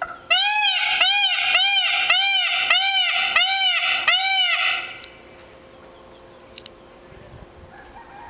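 Indian peafowl calling: seven loud, short calls in quick succession, each rising and then falling in pitch, stopping about halfway through.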